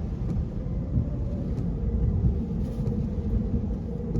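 Steady low rumble from inside a car's cabin, the engine running with storm wind against the car.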